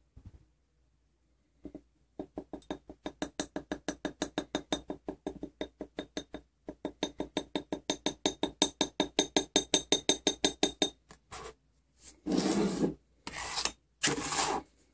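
Metal tweezers clinking rapidly against the inside of a small glass jar, about five ringing clicks a second with a short break, as a clear plastic model window is swished in a Polycrylic-and-water dip. Near the end, two short rustles of a paper towel handled in a plastic container lid.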